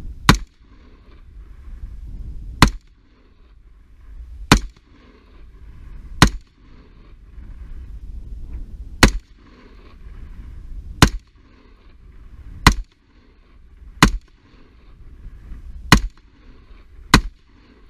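Colt LE6920 AR-15 rifle in 5.56 firing ten single shots in slow semi-automatic fire, one every one and a half to three seconds, each a sharp loud crack.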